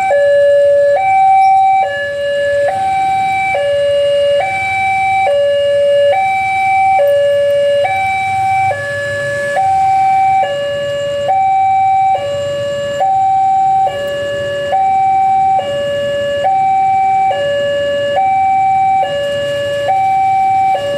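Railway level-crossing warning alarm sounding: a loud electronic two-tone signal alternating steadily between a higher and a lower note, each held a little under a second. It warns that the barrier is down and a train is about to pass.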